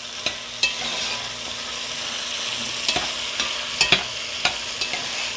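Chopped onions, peppers and baby potatoes sizzling in a hot enamelled cast-iron pot while a metal spoon stirs them, clicking and scraping against the pot several times. The vegetables are being sautéed to bring out their flavour.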